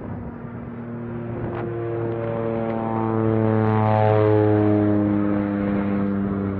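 An engine passing by: a steady droning hum that grows louder to a peak about four seconds in, then eases slightly.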